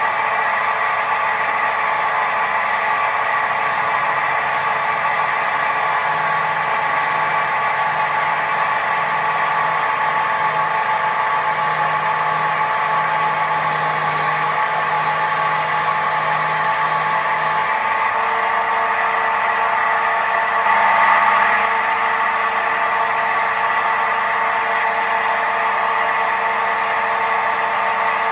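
Record wood lathe running at high speed with a bowl blank spinning on it, a steady mechanical hum with several held tones, which changes character about two-thirds of the way through and briefly gets louder soon after.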